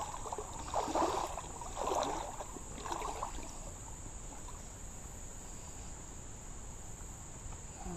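Insects droning in a steady high buzz, with a few short muffled rustling noises in the first three seconds.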